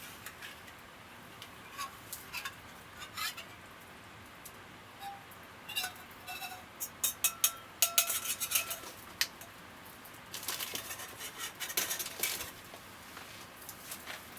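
Metal utensils clinking and scraping against metal cups and cookware: a run of irregular taps, some ringing briefly, coming thickest in the middle and again about two-thirds through.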